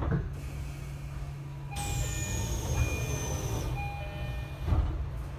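Tokyo Metro 10000 series train's door chime sounding a repeated two-tone pattern over a hiss and a high whine that falls in pitch, as the doors move. A thud near the end as the doors shut, with a knock at the start and a low steady hum of the train underneath.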